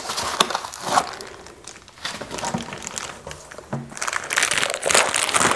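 Plastic packaging wrap crinkling and rustling as it is handled and lifted out of an air filter housing with a wrapped filter cartridge. It grows louder near the end.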